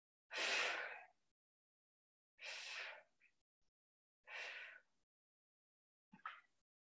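Three hard exhalations of breath, about two seconds apart, in time with chest-press reps: one breath out on each lift. A short click follows near the end.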